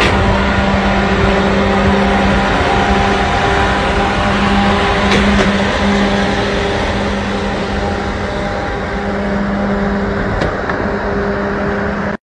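Highway driving noise at speed: a steady rush of wind and tyre roar, with a steady droning hum from a heavy fire-rescue truck running alongside.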